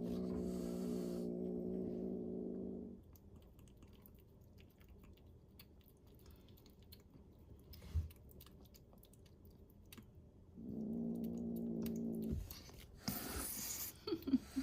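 Frightened rescue kitten growling: a steady growl about three seconds long at the start and a shorter one about ten seconds in, then a burst of hissing near the end. Faint scattered clicks come in between.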